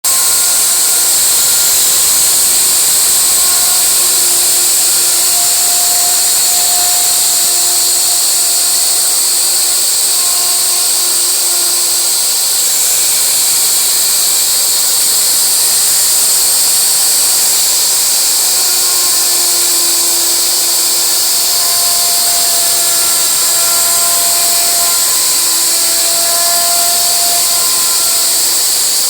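CNC wood router carving wood: the spindle runs steadily with a loud high hiss while the bit cuts. Fainter lower tones come and go over it.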